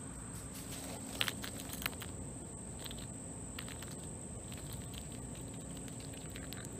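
Quiet yard ambience with a few small clicks and rustles, mostly between one and two seconds in, as a chipmunk scampers through grass and handles a peanut. A faint steady high-pitched tone runs throughout.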